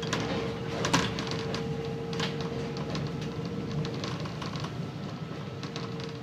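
Interior of a Volvo B7TL double-decker bus under way, heard from the top deck: the six-cylinder diesel engine drones with a steady whine held over it. Panels and windows rattle and click throughout, with the loudest knock about a second in.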